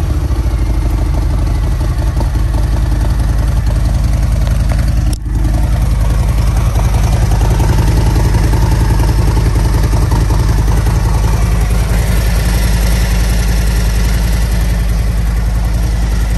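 Harley-Davidson Road Glide's V-twin engine idling steadily.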